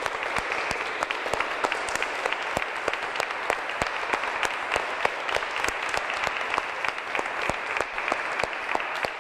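A small audience of children and adults applauding steadily, many hands clapping at once.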